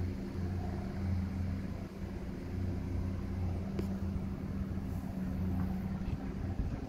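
An engine running steadily: a low, even drone with no change in speed.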